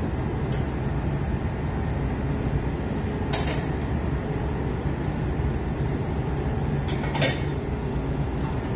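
Steady low drone and hum of a ship's engines while the vessel is under way, with two short clicks about three and a half and seven seconds in.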